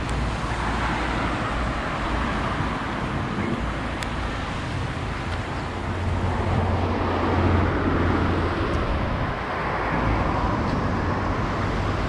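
Road traffic: a car passes on the seafront road, growing loudest about seven to eight seconds in and then fading, over a steady rushing background.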